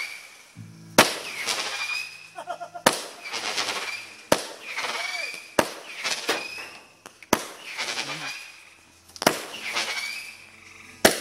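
Aerial fireworks firing in a series, about seven sharp bangs roughly every one and a half to two seconds, each followed by a short high whistle.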